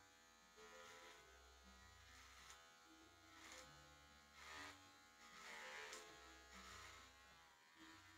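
Electric hair clippers buzzing faintly, swelling in short strokes as they are drawn through beard hair.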